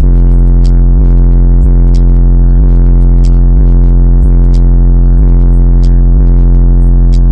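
Bass-heavy electronic music through a car audio system, played very loud: a deep, sustained sub-bass note under a steady beat of about three hits every two seconds.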